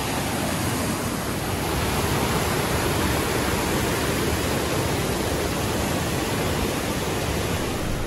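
Whitewater rapids of a waterfall river rushing over rocks: a steady, unbroken roar of churning water.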